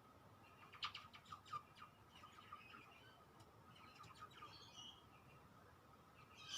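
Faint bird chirps: a quick cluster of short, sharp chirps about a second in and another around four seconds in, over a faint steady high tone.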